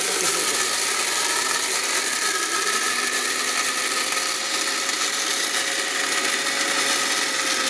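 Havells mixer grinder running at full speed, its stainless-steel jar dry-grinding pulses into fine besan (gram flour), with a steady, unbroken whir.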